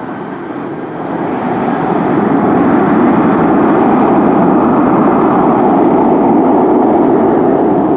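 WestJet Boeing 737 taxiing, its CFM56 turbofan engines running with a loud, steady rushing noise that grows a little louder over the first two seconds.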